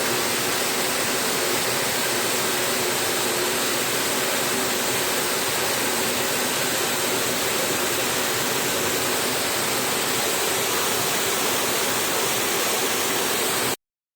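Steady jet of water from a spray washer hitting an air conditioner's heat exchanger during cleaning. It cuts off abruptly near the end.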